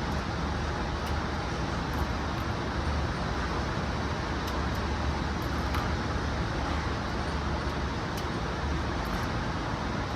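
Steady, even rumbling background noise with a strong low hum, with no loud impacts.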